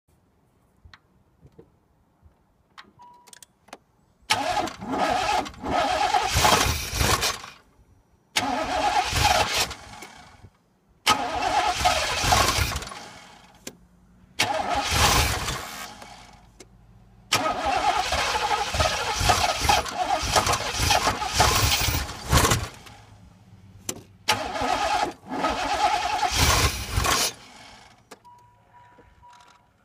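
Small-block Chevrolet V8 cranked by its starter in six tries of two to five seconds each, kicking back and not starting. This is typical of a warm engine whose failing ignition control module isn't firing the ignition fully.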